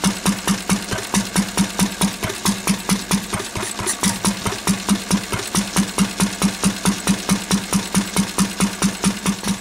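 1951 Lister D single-cylinder petrol stationary engine running steadily with an even beat of firing strokes, about five a second. It is still running on full rich after its petrol tap has been shut, since the tap is not stopping the fuel fully.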